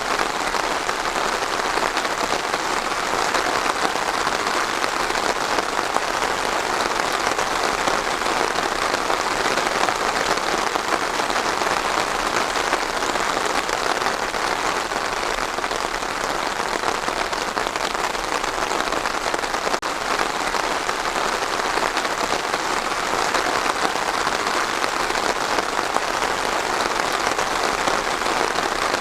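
Steady rain falling and pattering on a surface, an even, dense hiss without breaks.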